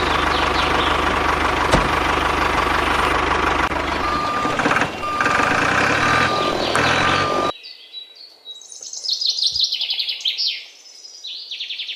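A vehicle engine running with a steady low hum, a beeper sounding about four times in its second half. It cuts off abruptly about seven and a half seconds in, and birds chirp in quick trills after.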